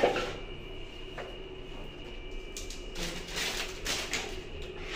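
Handling noise of plastic toilet parts on a tiled floor: a sharp knock at the start, a lighter knock about a second in, then a stretch of scraping and rustling later on.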